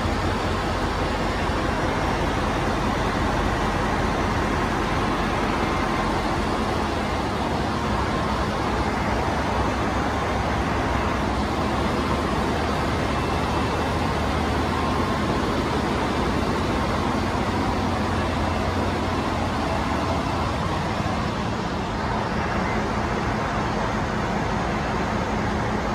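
Steady, loud drone of the running machinery in a ship's engine room, with a low hum beneath it that stays even throughout.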